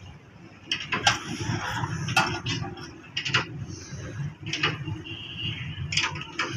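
Sharp metallic knocks and scrapes, about seven of them spread irregularly, from the steel mould shell of a cast cement sewer pipe being handled and worked loose by hand, over a steady low rumble.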